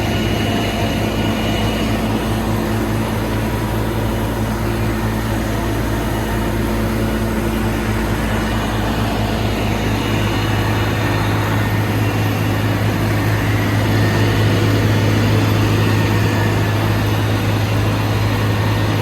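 Krone BiG M self-propelled mower running steadily while mowing, a constant low engine drone with a steady hum above it and no change in pace.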